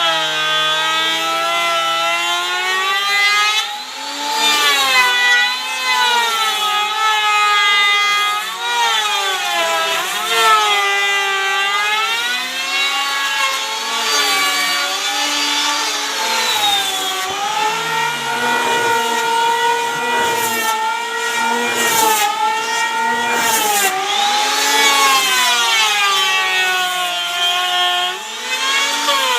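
Woodworking power tool cutting wood. Its motor pitch keeps dropping and recovering every second or two as the blade takes load.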